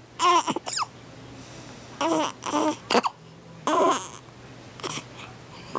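Baby hiccuping, with sharp little hiccups about three seconds in and again near five seconds, between several short whimpering vocal sounds.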